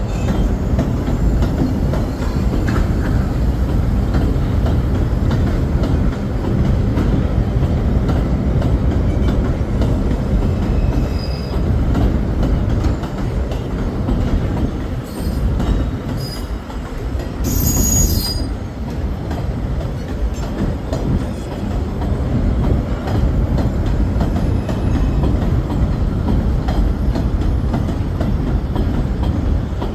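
Subway train running on the elevated White Plains Road line, a steady low rumble throughout, with brief high-pitched wheel squeals about halfway through.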